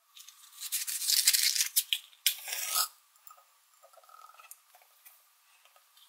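Cardboard matchbox handled and a match struck against its side: two scratchy rasps, the first about a second and a half long, the second shorter, about two seconds in, followed by faint small rustles.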